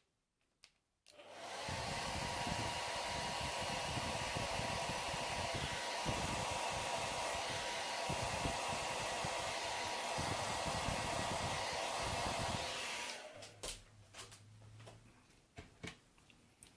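Hairdryer blowing steadily with a faint whine, switched on about a second in and off about three-quarters of the way through, warming the phone to soften the glue holding the flex cable. A few faint handling clicks follow.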